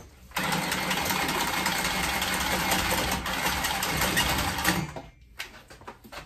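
Handheld power saw cutting through a 2-inch steam main pipe, running for about four and a half seconds and then stopping abruptly.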